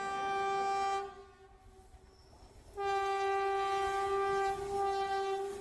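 Train horn sounding two long, steady blasts on one pitch: the first stops about a second in, and the second starts just before the three-second mark and holds for about two and a half seconds.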